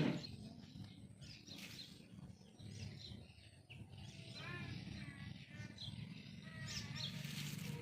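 Bird calls: a few short chirps and a brief run of pitched calls about halfway through, over a steady low background rumble.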